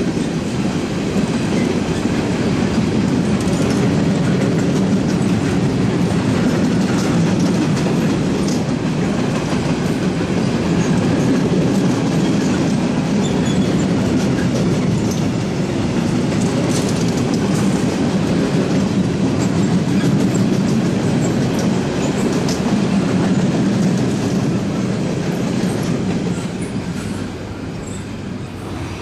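A long freight train of covered wagons rolling past: a steady rumble with scattered wheel clicks, dropping away near the end as the last wagon clears.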